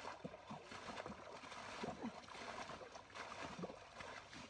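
Repeated splashing of water as a wooden boat is bailed out with a metal bowl, each scoop thrown back onto the pond.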